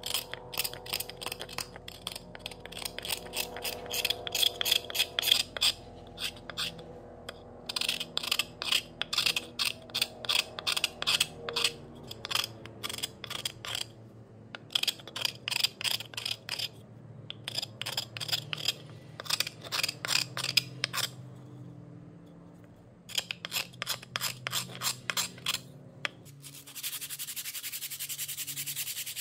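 A metal file stroked rapidly back and forth over a hand plane's wooden handle, in runs of strokes broken by short pauses. About three seconds before the end it changes to a steady scratch of sandpaper rubbed on the wood. Faint background music underneath.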